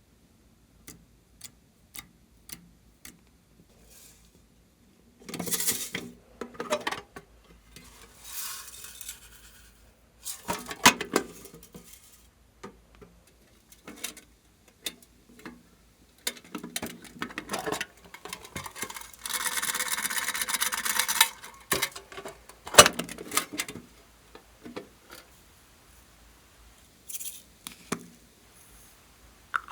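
Close-up handling of small objects and slime: a run of sharp clicks, then irregular rubbing and scraping, with a steady hiss lasting about two seconds around two-thirds of the way through and a few louder knocks.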